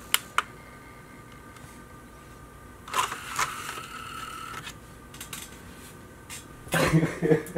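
A DVD being lifted out of an opened DVD player's disc tray by hand, plastic on plastic. There are two small clicks at the start and a scrape about three seconds in, then a louder cluster of knocks and handling sounds near the end.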